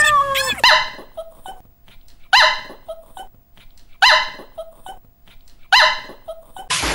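Small dog barking, four sharp barks evenly spaced about a second and a half to two seconds apart.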